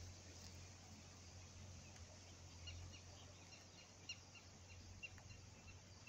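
Faint, short, high bird chirps repeating irregularly from about halfway through, over quiet outdoor background hum.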